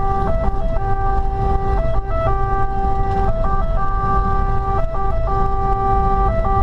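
Fire engine's two-tone siren heard from inside the cab: a steady tone that keeps switching briefly to a higher tone about every second, over the truck's diesel engine and road rumble.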